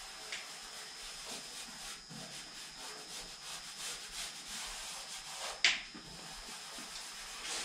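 A hand rubbing vinyl decal transfer tape down onto a car's painted door in a series of short strokes, with one louder, sharper stroke about five and a half seconds in.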